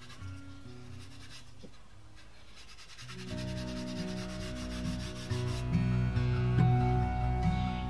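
Quick back-and-forth rubbing of a non-abrasive scouring pad working hard wax oil into plywood, under background music with sustained low notes that grows louder and fuller about three seconds in.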